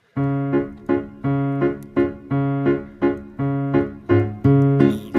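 Background music: a keyboard playing repeated chords in a steady rhythm, about three strikes a second.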